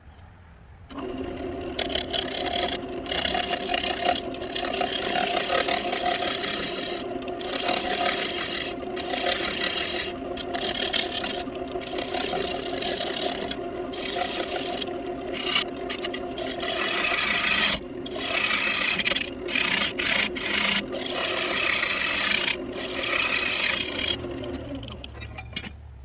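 Wood lathe running a walnut piece while a tool scrapes and rubs on the spinning wood, with many short breaks as the tool is lifted off. The lathe's hum starts about a second in, and lathe and tool fall away near the end.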